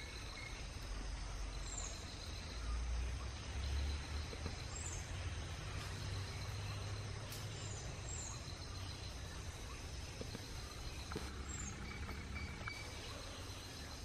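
Forest ambience: a steady low rumble, with faint, short, high-pitched bird chirps a few times.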